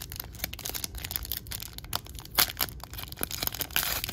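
Foil wrapper of a trading card pack crinkling and tearing as it is ripped open by hand: a dense run of sharp crackles that grows thicker and louder in the last second.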